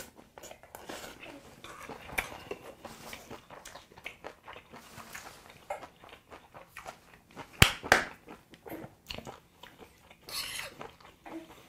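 Close-miked chewing of a mouthful of yukhoe bibimbap, with wet mouth clicks and smacks and a few sharper clicks partway through. Near the end a metal spoon scrapes in the brass bibimbap bowl.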